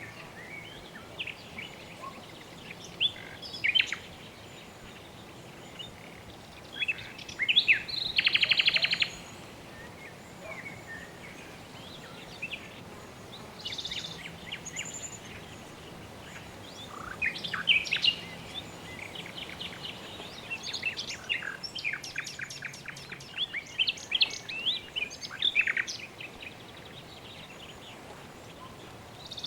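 Several birds chirping and calling in short bursts, including a fast buzzy trill, over a soft steady background noise.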